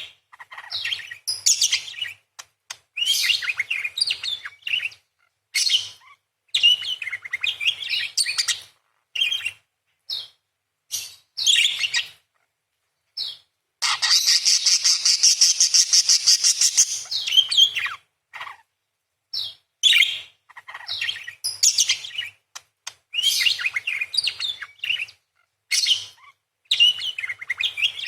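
Parakeet chirping in quick, sharp bursts with short silent gaps between them. About 14 seconds in it breaks into a rapid rattling chatter lasting about three seconds.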